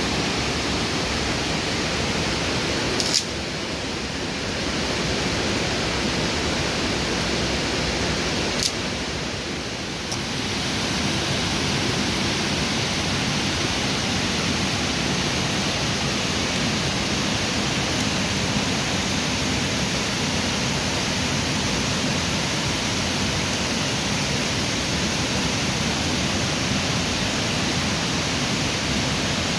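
Steady rush of water, typical of a swollen, fast-flowing river, with two short clicks about three and nine seconds in.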